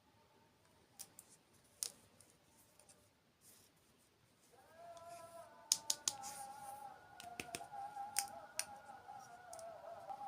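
Sharp, crisp clicks and snaps, a few early on and then a quick run of them, with soft background music coming in about halfway through.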